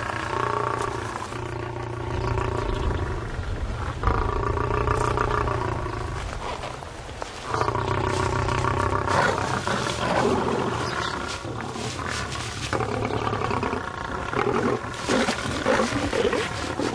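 Lions growling and snarling: several long, deep growls of a couple of seconds each, then shorter, rougher snarls in the last few seconds. These are aggressive warnings from a pride defending hidden cubs.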